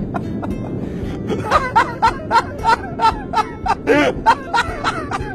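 People laughing in short repeated ha-ha pulses, about three a second, with one higher-pitched squeal of laughter about four seconds in.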